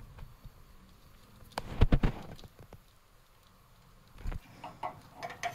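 Handling noise from splicing wires by hand: a cluster of sharp knocks and clicks about two seconds in, then a single knock and a few lighter clicks near the end.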